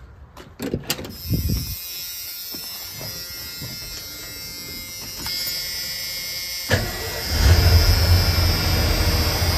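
A Ford F-150's freshly swapped engine being started: a few clicks and knocks at first, then about seven seconds in it starts suddenly and settles into a steady low running rumble. The distributor has not yet been tightened, so the ignition timing is off.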